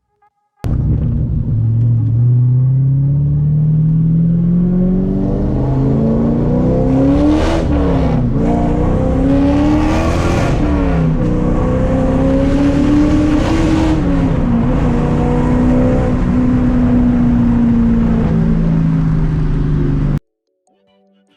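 Holden's LS1 V8 engine and exhaust running under load. The engine note climbs steadily for about six seconds, then rises and drops sharply several times as the revs change. The clip cuts in abruptly and stops abruptly.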